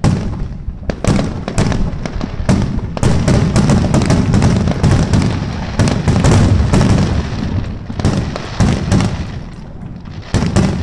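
Aerial firework shells bursting one after another: many sharp bangs over a continuous low rumble, densest in the middle, with a couple of loud bangs near the end.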